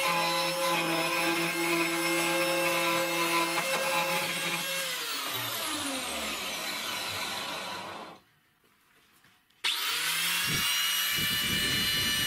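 Angle grinder converted to a drill, running at steady speed with its bit in pine. About five seconds in it is switched off and its whine falls as it spins down; after a short near-silent gap it starts again with a rising whine and runs steadily.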